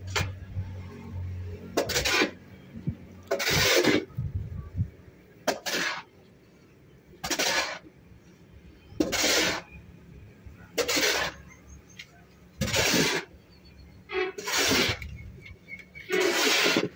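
Steel shovel scraping through a pile of sand-cement mortar and over the concrete floor as it is mixed by hand, about nine rasping strokes, one roughly every two seconds.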